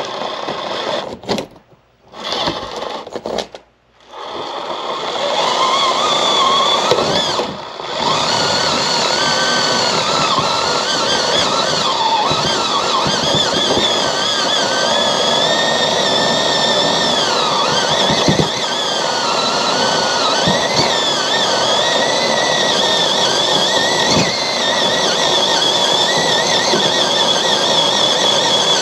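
Small electric motor and gear drive of a 1/24-scale SCX24 mini rock crawler whining as it climbs, the pitch wavering up and down with the throttle. It stops briefly twice in the first few seconds, then runs without a break.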